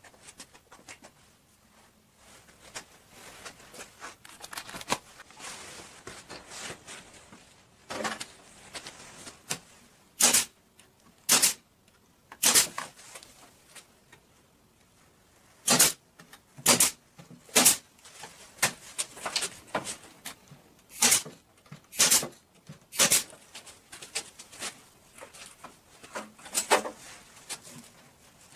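Hand work on a wooden frame: scattered taps and handling noise, with sharp knocks coming in groups of two or three about a second apart.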